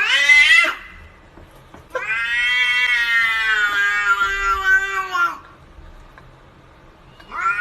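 Cat yowling: a meow that rises and stops soon after the start, then one long drawn-out yowl of about three seconds, and another meow beginning near the end.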